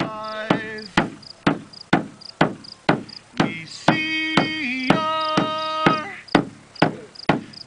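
Large hand-held frame drum struck steadily with a beater, about two beats a second, while a voice sings a chant over the beat.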